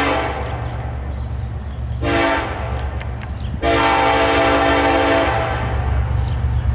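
Air horn of the approaching lead diesel locomotive, UP 8924, sounding: the end of a long blast, a short blast about two seconds in, then a long blast of nearly two seconds, the end of a standard grade-crossing signal. A steady low rumble of the locomotives' diesel engines runs underneath.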